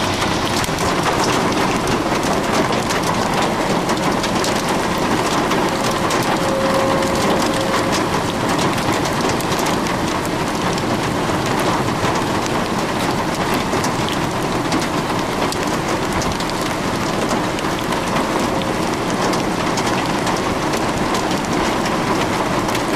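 Heavy rain mixed with pea-size hail falling on a lawn: a steady dense hiss peppered with many tiny sharp impacts.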